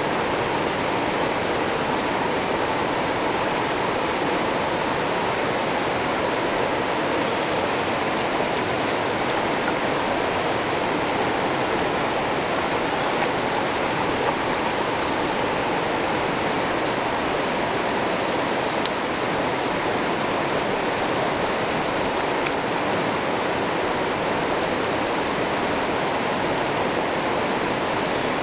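River water rushing steadily over a rocky stretch of shallow rapids.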